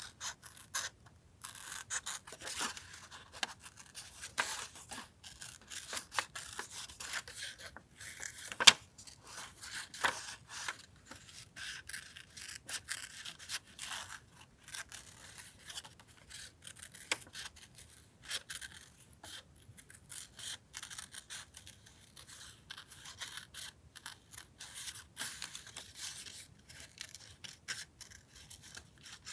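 Paper collage materials being handled: a continuous run of paper rustling, rubbing and scraping with small clicks, and one sharp click a little under nine seconds in.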